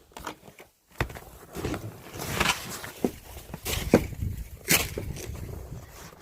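Hard, thick snow being scraped and broken up with a shovel: an irregular series of scrapes and sharp knocks.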